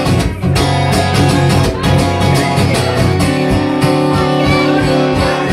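Live rock band playing an instrumental passage: strummed guitar over bass with a steady beat.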